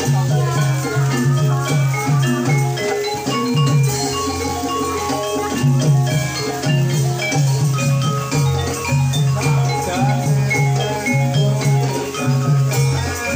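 Javanese gamelan music accompanying a kuda kepang (ebeg) dance: many quick struck pitched notes over a steady pulsing low beat.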